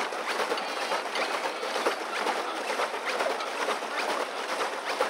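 Pedal boat's paddle wheel churning the water: a continuous patter of small, irregular splashes.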